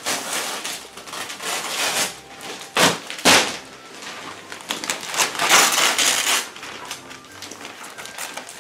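Gift wrapping paper being ripped and crumpled off a sofa in repeated rustling tears. There are two sharp loud rips about three seconds in and a longer loud tearing stretch about five to six seconds in.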